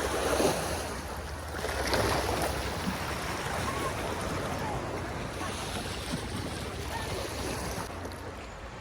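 Black Sea waves washing, with wind rumbling on the microphone; the wash swells about half a second in and again around two seconds.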